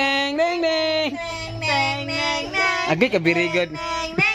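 A children's song playing, sung in a high, child-like voice with long held notes that slide between pitches.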